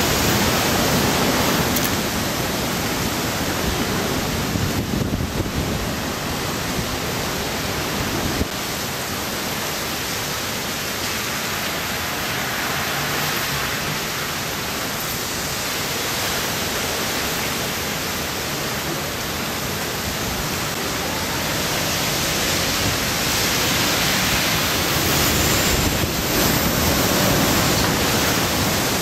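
Typhoon wind and heavy driving rain: a dense, steady rush of noise with the wind buffeting the microphone. It drops suddenly about eight seconds in and builds again near the end.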